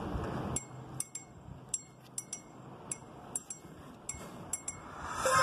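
A string of sharp, clinking clicks with a short metallic ring, irregular at a few per second. Near the end a bright, mallet-like music intro starts.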